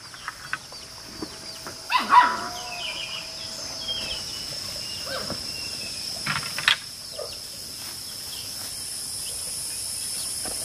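Rural garden ambience: insects drone steadily at a high pitch and birds chirp. A loud, short animal call comes about two seconds in. A single sharp knock comes a little past six seconds, from the bamboo trellis stakes being handled.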